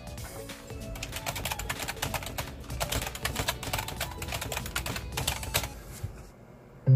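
Fast typing on a computer keyboard, a dense run of keystrokes starting about a second in and stopping shortly before the end, over quiet background music. It is a typing test on a PC whose text input had been lagging.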